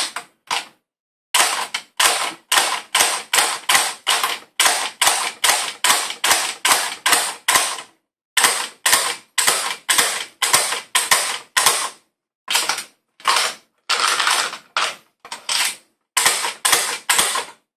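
McFadden Machine Lightnin' Grip .22 LR magazine loader being worked by hand: a run of sharp clicks, about two to three a second with a few short pauses, as it pushes rounds one by one into a Smith & Wesson M&P 15-22 magazine.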